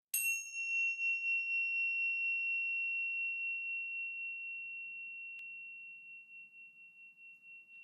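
A single high, clear chime struck once. Its brighter overtones fade within the first two seconds while the main tone rings on, wavering slightly and slowly dying away. A faint click comes about five seconds in.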